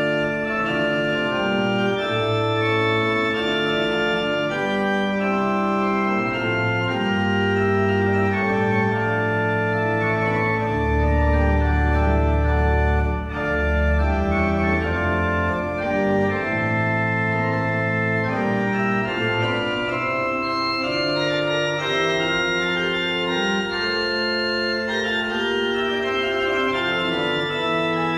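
Restored 18th-century Giovanni Fedeli pipe organ playing a piece of held chords that change every second or so, with very deep pedal notes about halfway through.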